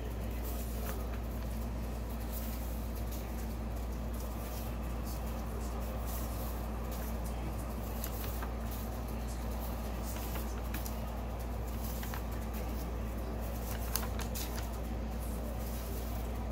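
Sheets of drawing paper being handled and turned over one at a time, with light rustles and flicks, over a steady low background hum. One sharper click comes near the end.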